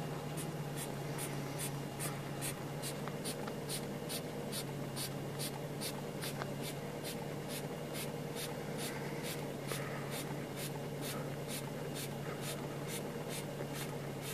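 Hand pump of a Polonez Caro relax seat's inflatable lumbar support being squeezed over and over, a short airy puff roughly three to four times a second as the lumbar section is pumped up. A steady low hum runs underneath.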